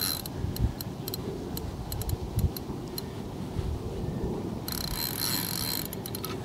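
Fixed-spool fishing reel worked while playing a hooked fish on a bent rod: a run of small irregular clicks, with a brief rasping buzz about five seconds in and more clicks near the end.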